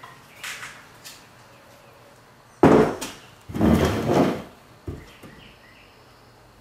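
Pine lengths of a small wooden frame being handled on a workbench: a few light taps, then a loud knock of wood on wood about two and a half seconds in, followed by a longer stretch of wood knocking and rubbing, and one last light tap.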